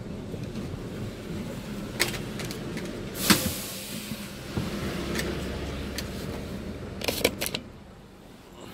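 Diesel truck engine running at low speed, heard from inside the cab as a steady low rumble. A short loud burst of noise comes about three seconds in, and a cluster of clicks and knocks comes near the end.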